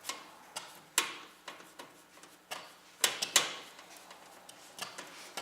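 Scattered light clicks and knocks, irregularly spaced, as screws are worked out of a PC case's hard-drive cage, with the loudest knocks about a second in and around the middle.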